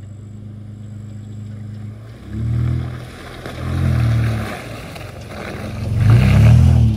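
A 2022 Nissan Frontier's V6 engine pulls steadily, then revs up and drops back three times, about two, four and six seconds in, as the pickup works through muddy clay ruts in two-wheel drive. The last surge is the loudest, as the truck draws alongside.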